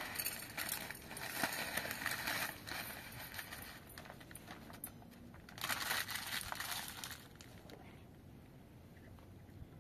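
Plastic packet crinkling as it is handled and emptied into a small bowl, in two bouts of rustling, the second about six seconds in, then only faint room noise.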